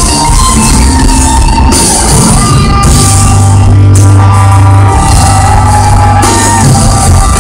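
Rock music played by a band with drum kit, with a held, slowly bending melody line over a steady low beat.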